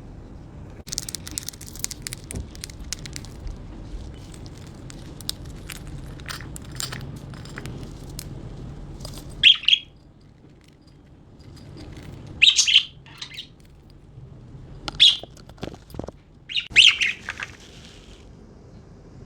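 Budgerigars pecking at food with a run of small sharp clicks, then about four loud short chirps in the second half.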